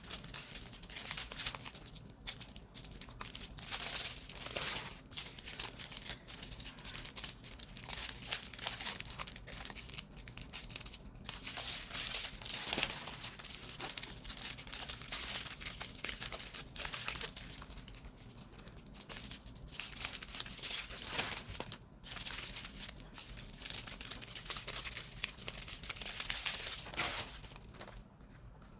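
Small plastic bags of diamond-painting drills (tiny resin rhinestones) crinkling and rattling as they are handled and sorted, in sped-up footage. The crinkling goes on almost without a break and eases off near the end.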